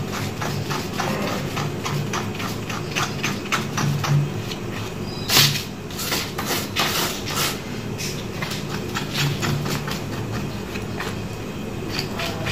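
Rapid, irregular scraping strokes as singed hair and charred skin are scraped off a goat's trotter, with one louder sharp stroke about five and a half seconds in, over a steady low hum.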